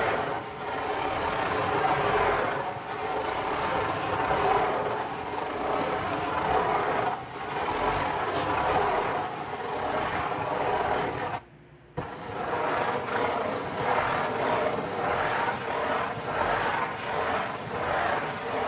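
Fingernails scratching in circles on the lid of a corrugated cardboard pizza box, a dry rasp that swells and fades with each circle. It breaks off for about half a second near the middle, and after that the strokes come quicker, about two a second.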